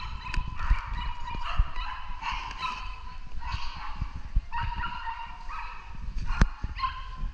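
A small dog barking repeatedly in high-pitched runs of yaps while running an agility course.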